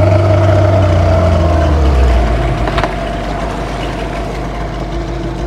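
A small open boat's motor running steadily while under way. About halfway through, its low note drops in pitch and the sound eases off a little.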